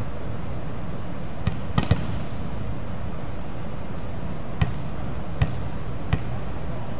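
Volleyball thuds as the ball is struck and bounces: six sharp hits, three in quick succession about a second and a half in, then three more spaced about a second apart, over a steady background hiss.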